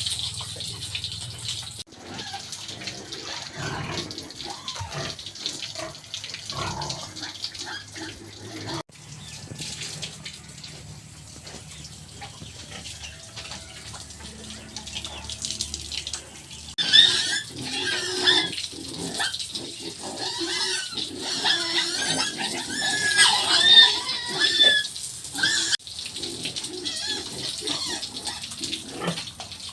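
Pigs grunting and squealing, with the squeals loudest and thickest through a stretch past the middle. The sound breaks off abruptly a few times.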